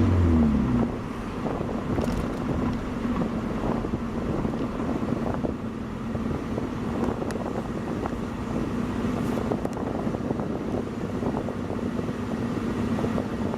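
Car engine and road noise from a moving car: the engine rises in pitch over about the first second as it speeds up, then settles into a steady hum with a rumble.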